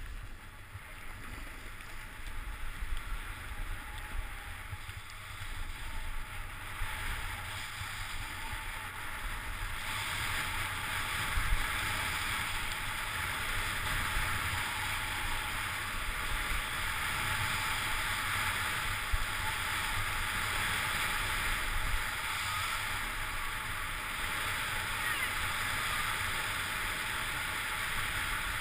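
Snowboard sliding down a groomed slope: a steady hiss of the board on packed snow, with wind rumble on the microphone. The hiss grows louder and brighter about ten seconds in and stays so.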